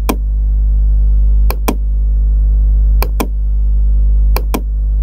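Loud steady electrical mains hum on the recording, a deep buzz with a ladder of overtones, broken by sharp clicks that come in pairs about every one and a half seconds.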